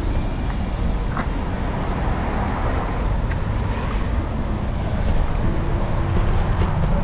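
Steady city street traffic noise: a low rumble of passing cars on the road.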